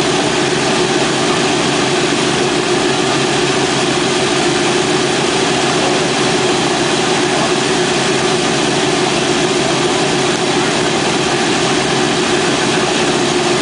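Boeing B-17's Wright R-1820 Cyclone nine-cylinder radial engines running steadily with propellers turning while the bomber stands on the ramp.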